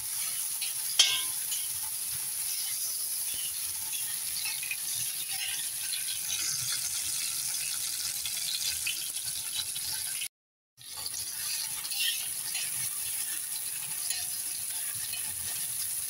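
Chopped tomato and onion sizzling in hot oil in a wok, with a metal spatula scraping and clinking against the pan; a sharp clink about a second in. The sound cuts out completely for half a second a little past the middle.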